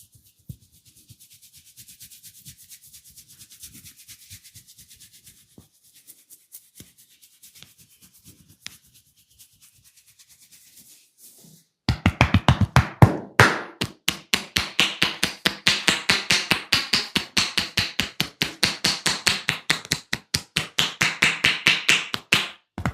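Fingers scratching and rubbing through the hair on a scalp, soft and faint. About halfway it changes to loud, rapid, rhythmic hand slaps on the head of a percussive head massage, about six strikes a second.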